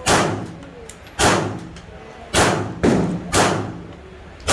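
Gunshots at a shooting range, each sharp crack trailing off in echo: two about a second apart, then three quicker ones about half a second apart, and another right at the end.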